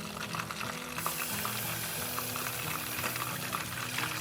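Butter-and-flour roux sizzling in a hot pan, the hiss growing louder and brighter about a second in. Background music plays underneath.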